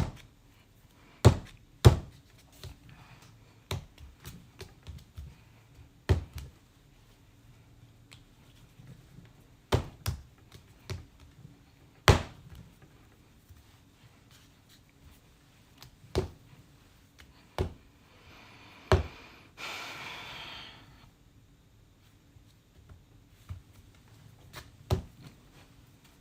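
Lumps of soft clay slapped and pressed together by hand on a canvas-covered wooden board, making irregular dull thuds about every second or two.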